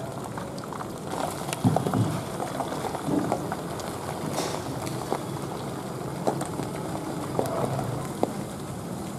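Small whole eels deep-frying in a wok of hot oil: a steady sizzle with many small crackles, and a few louder pops between one and a half and two seconds in.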